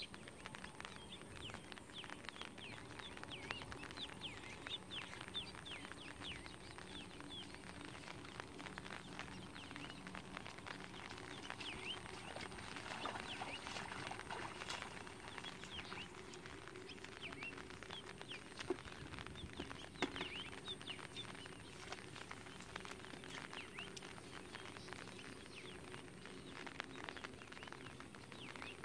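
Outdoor ambience of many short, high chirps from small creatures, several a second, over a steady faint hiss, with a couple of sharper clicks near the middle.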